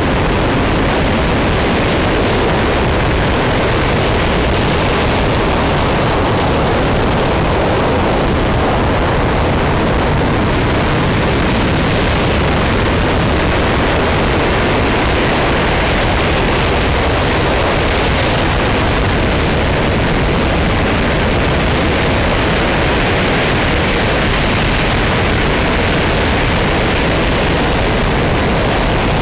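RS-25 liquid-hydrogen/liquid-oxygen rocket engine firing at steady thrust during a ground test: a loud, unbroken rush of noise that holds level throughout.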